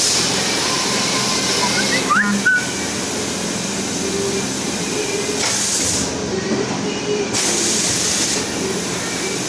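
A PCA-006 vertical airless packaging machine running with a steady mechanical hum, broken by short hisses several times and a brief clatter about two seconds in.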